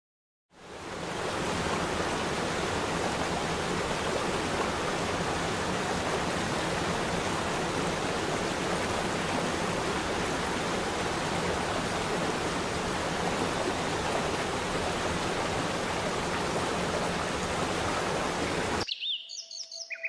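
Steady rushing roar of a waterfall, fading in just after the start and cutting off suddenly near the end, where bird chirps take over.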